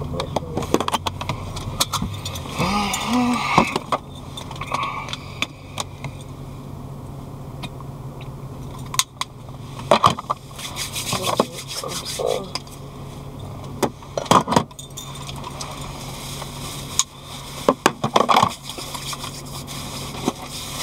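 Small objects being handled and rummaged through: irregular clicks, clinks and rustling scrapes, over a faint steady low hum.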